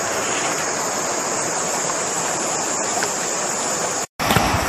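Steady, even rush of flowing river water. It cuts out completely for a moment about four seconds in.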